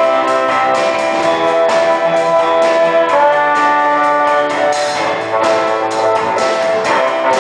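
Band music with brass horns playing held chords over a steady beat.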